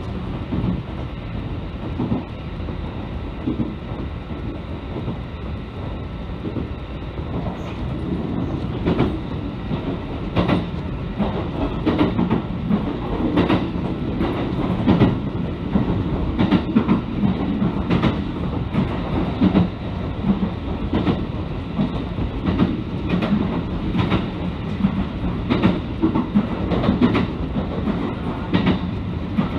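Passenger train running, heard from inside the car: a steady low rumble with the clickety-clack of wheels over rail joints, which becomes more pronounced after several seconds.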